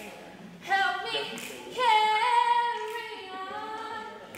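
A woman singing unaccompanied: a short phrase about a second in, then a long held note that steps down in pitch partway through.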